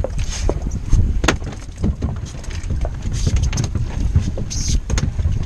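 Wind buffeting the microphone on an open fishing boat, a steady low rumble with hissy gusts. A few sharp knocks on the boat stand out, the loudest about a second in and another near the end.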